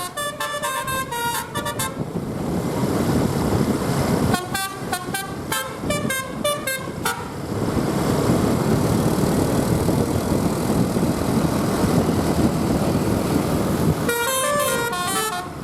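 Telolet basuri musical bus horn with roof-mounted trumpets playing quick melodic runs of stepped notes, three times: at the start, from about four to seven seconds in, and again near the end. Between the runs, the bus's engine and road noise rumble.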